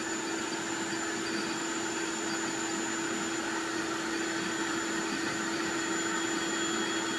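Intex air mattress's built-in 120-volt electric pump running steadily, inflating the mattress, with an even hum under the rush of air.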